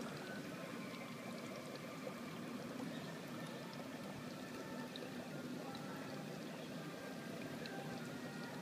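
Faint, steady trickle of running water, with a few small ticks.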